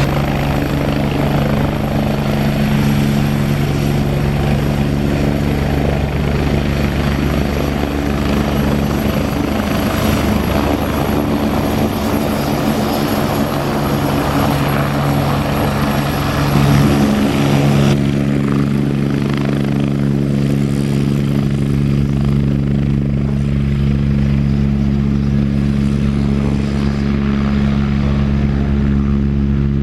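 Agusta AW109 twin-turbine helicopter running with its rotor turning: a loud, steady drone with a stack of steady low tones under a hiss. A little past halfway the higher hiss falls away sharply while the low drone carries on.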